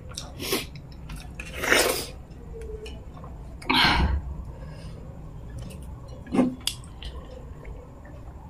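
Close-miked wet eating sounds from hand-eating fish head curry: chewing with several short, loud wet smacks, the loudest about four seconds in.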